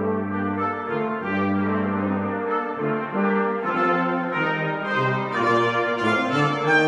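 Brass quartet playing, with tuba and cornet. Two long low notes are held under the upper parts in the first couple of seconds, then all the parts move in shorter notes.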